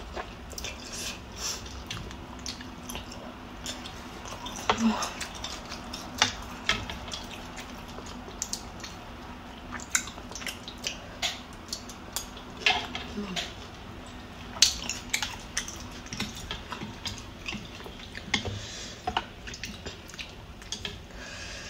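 Close-up eating sounds of a bowl of pho: slurping noodles and broth and wet chewing, with short, scattered clicks of a metal spoon and chopsticks against a ceramic bowl.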